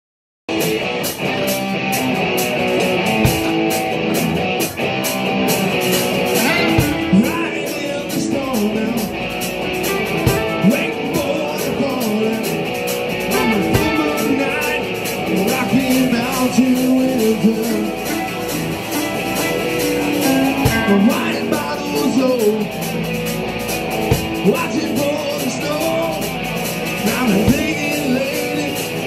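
Live rock band playing: electric guitars, bass and drum kit with singing, starting abruptly about half a second in.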